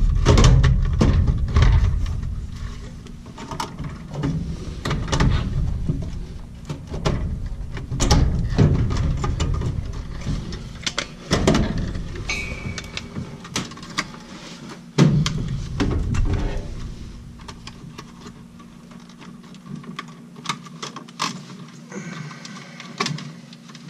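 Irregular clicks and knocks of wiring plugs and connectors being pulled off a furnace control board, with the rustle of wires being handled. There is a sharper knock about 15 seconds in.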